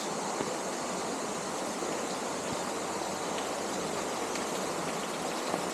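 Small stream running low and flowing into a cave entrance: a steady, unbroken rush of water.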